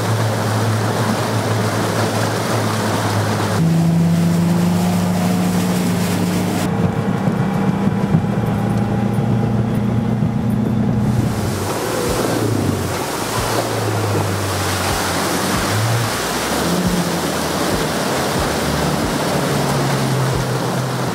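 Bass boat's outboard motor running at speed, with rushing water from the wake and wind on the microphone; the engine tone steps to a new pitch a few times. In the second half the hull thumps repeatedly as it runs over chop.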